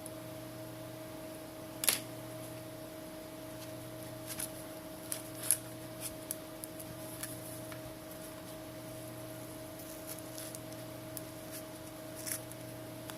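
Scattered small sharp clicks and taps of a pry tool working under a phone's glass back cover to free it from its adhesive, the loudest about 2 seconds in and another near 5 seconds. A steady electrical hum lies underneath.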